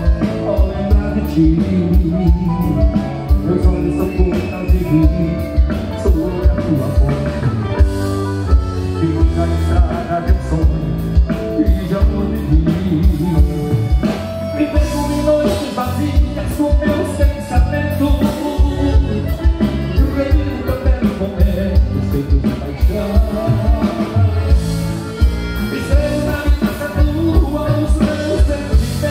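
A live band playing gaúcho dance music with a steady beat, with singing over it.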